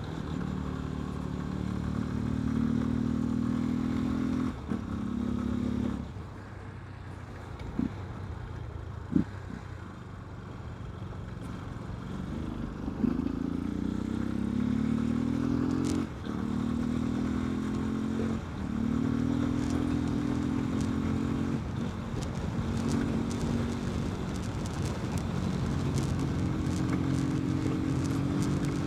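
Yamaha Fazer 250's single-cylinder four-stroke engine, running with its air filter removed, pulling through the gears under way. The engine note climbs, then breaks off and drops back at each shift, several times over. There are two short sharp cracks about eight and nine seconds in.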